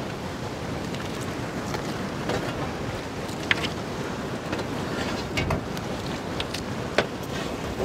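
Wind buffeting the microphone: a steady low rumble. A few sharp knocks cut through it, the loudest about three and a half seconds in and near the end, as the mutton legs are handled into a large aluminium cooking pot.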